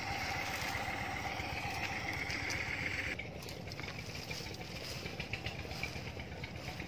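Small engine of a walk-behind tractor tilling a flooded rice paddy, running steadily at a distance; its higher whine drops away suddenly about three seconds in.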